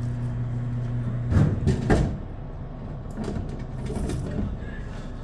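Dixie Narco soda vending machine vending: a steady motor hum cuts off about a second and a half in, followed by two or three heavy thuds as a bottle of Dasani water drops into the delivery bin.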